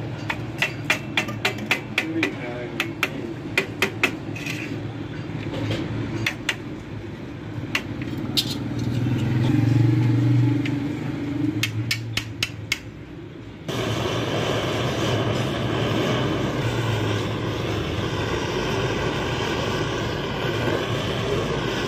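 Sharp metal taps and clicks from hand tools working a car radiator's steel mounting bracket, over a low rumble. About 14 seconds in the sound cuts abruptly to a steady mechanical drone.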